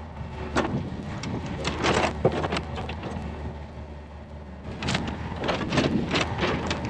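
Yanmar VIO50 mini excavator's diesel engine running steadily. Over it come a string of sharp cracks and knocks, bunched in the first couple of seconds and again from about five seconds in.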